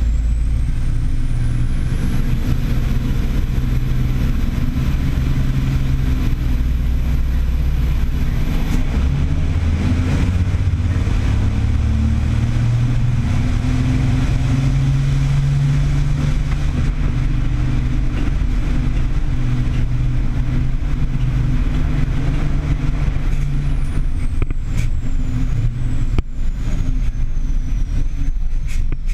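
Heavy racing trucks' turbo-diesel engines running in a pack at rolling speed, heard from on board. It is a steady, loud, low drone whose pitch shifts a little, with a faint high whistle over it for the first several seconds.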